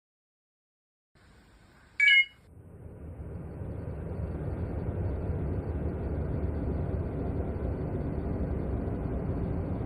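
A short, loud electronic beep, followed by a low rumbling noise that swells over a couple of seconds, holds steady and then cuts off abruptly.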